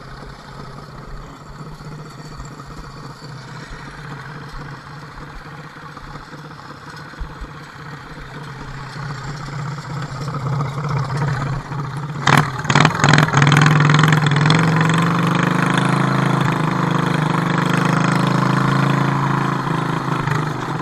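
Wheel Horse garden tractor engine idling steadily. About twelve seconds in there are a few knocks, and the engine gets much louder as it is throttled up and the tractor drives off.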